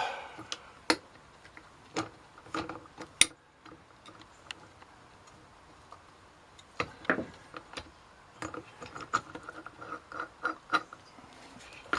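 Light metal clicks and taps, irregular and scattered, from a puller and its screws being handled and fitted onto a chainsaw part. One sharper click about three seconds in, and busier small clicking and rubbing in the second half.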